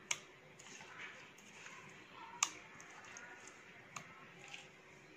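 A few faint, sharp clicks and light taps of a utensil against a steel bowl as ground masala paste is put onto raw fish pieces. The loudest click comes about halfway through.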